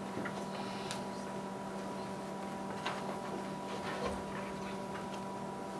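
Room tone: a steady electrical hum with a few faint, scattered clicks and small handling noises.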